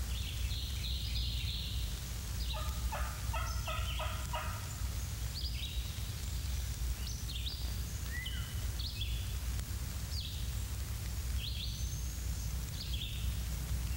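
Wild turkey gobbling, a rapid rattling run of notes a few seconds in, with small songbirds chirping around it over a steady low hum.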